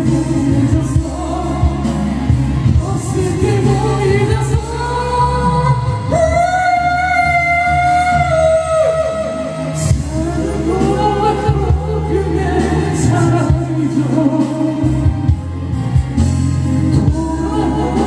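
Pop song with a sung vocal over a backing track with heavy bass, the singer holding one long note from about six seconds in to eight and a half seconds.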